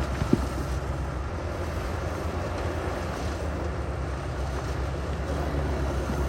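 Heavy diesel construction machinery running steadily with a deep engine rumble, and one sharp knock just after the start.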